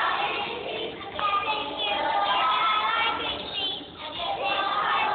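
A group of young preschool children singing a song together, with music accompanying them, in short phrases with brief pauses between them.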